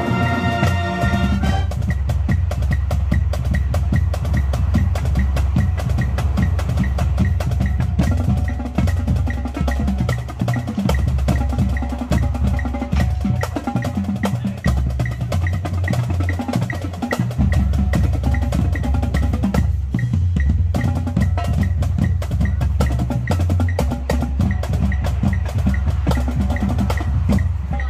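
Marching band percussion section playing a feature alone: a rapid mix of drum and snare strokes with a steady wood-block-like click and low bass notes that step in pitch. A held wind-band chord cuts off about a second and a half in.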